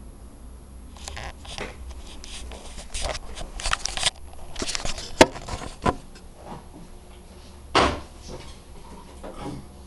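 Handling noise: rustling with scattered knocks and clicks as the camera is moved and a violin and bow are picked up from the piano. There is a sharp click about five seconds in and a louder thump near eight seconds.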